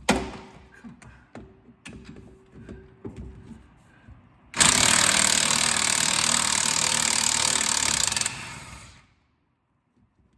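A sharp knock, then a few light clunks and clatters. About four and a half seconds in, an impact wrench hammers for nearly four seconds, breaking a heated, seized strut fastener loose, then stops and winds down.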